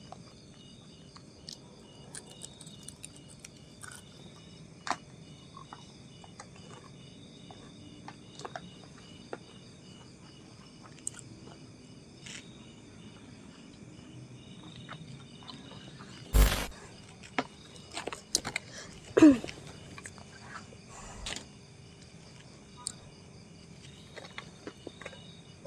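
Night insects, crickets, chirping steadily in a high pulsing drone, with many small scattered clicks and knocks. A loud sharp knock comes about 16 seconds in, and a short falling-pitched sound about 19 seconds in.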